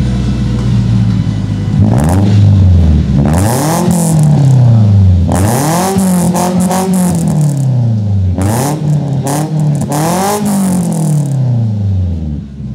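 Mitsubishi Lancer's exhaust, fitted with an aftermarket full system (header, piping, resonator and muffler), idling steadily, then revved about five times, the pitch rising and falling with each blip. It drops back toward idle near the end.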